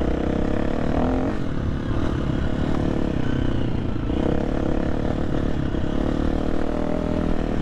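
KTM 350 dirt bike's single-cylinder four-stroke engine running steadily while the bike is ridden, its pitch shifting slightly.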